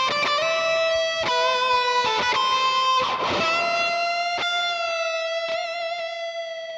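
Electric guitar playing a solo melody line of single notes with bends and vibrato. A brief scraping noise comes about three seconds in, and the line then settles on one long held note with vibrato that starts to fade.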